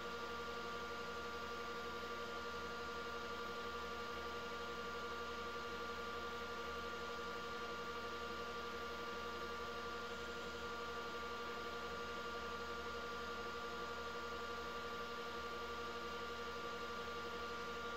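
Wood lathe running at a steady speed, a constant motor hum and whine over an even hiss, while sandpaper is held against the spinning resin-and-wood egg.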